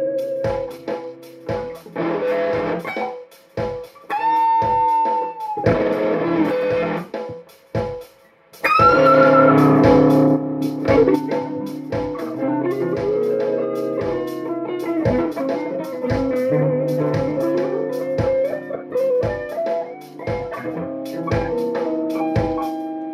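Electric guitar played lead, single notes and short phrases with string bends and vibrato, over a backing track with a steady beat.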